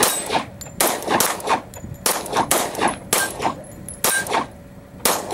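Two semi-automatic handguns firing side by side: about ten sharp shots in quick, uneven succession, each with a short echo. A couple of times a short ring can be heard, as from a hit steel target.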